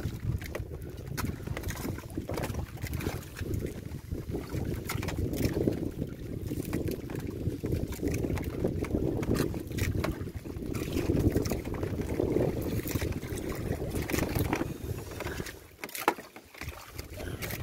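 Wind and choppy sea around a small outrigger fishing boat, with heavy wind buffeting on the microphone and scattered small knocks. There is a brief lull with one sharp knock near the end.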